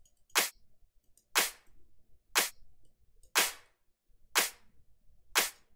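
Electronic drum clap sample played back on its own, six sharp hits evenly spaced about a second apart, each dying away quickly.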